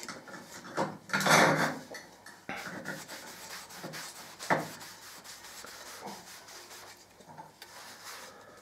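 Cloth pad rubbing priming oil into stained wood veneer pieces set on a board, a soft scrubbing sound. A louder scuff comes just after the start, and a sharp knock about halfway through.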